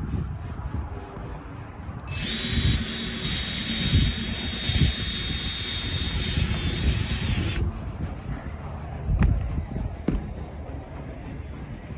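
Hercules 20V cordless drill running steadily with a high whine for about five and a half seconds, its bit working into the hatch's mounting flange; it starts about two seconds in and stops abruptly. A couple of sharp knocks follow.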